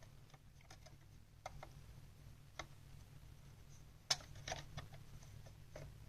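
Scattered light clicks and taps of small laptop parts being handled, with the sharpest knock about four seconds in followed by a quick run of clicks, over a faint steady low hum.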